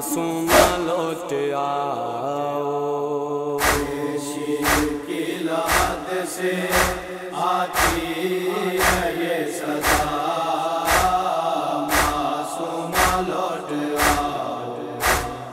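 Wordless chanted voices holding a sustained, wavering drone as the backing of a noha lament. A steady beat of sharp strikes about once a second joins a few seconds in.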